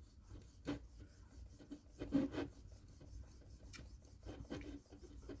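Knife sawing and scraping into a filled chocolate bar to cut it into pieces: a few faint, irregular rasping strokes.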